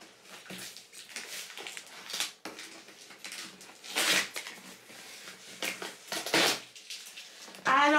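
Cardboard shipping box being handled and rummaged through: irregular scraping and rustling of cardboard, with louder short bursts about two, four and six seconds in.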